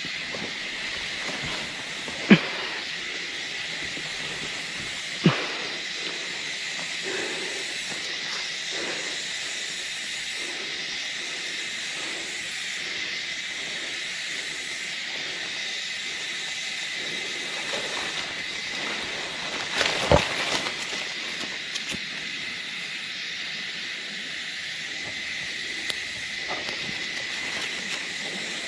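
Steady high-pitched insect chorus in the forest, with a few sharp knocks: one about two seconds in, one about five seconds in, and a small cluster about twenty seconds in.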